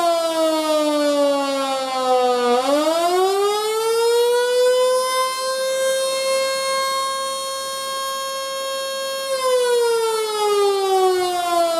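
Federal Model 2 electromechanical siren, a 220-volt unit built around 1911, wailing. Its single tone falls to a low point about two and a half seconds in, winds quickly back up to a steady high pitch held for about four seconds, then starts falling again. This repeated rise and fall is the attack signal.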